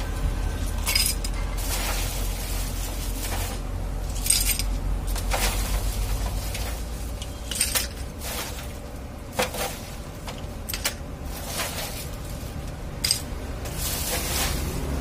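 Ice cubes dropped by hand into tall drinking glasses, clinking against the glass in a dozen or so scattered knocks, with the plastic ice bag rustling. A steady low rumble runs underneath.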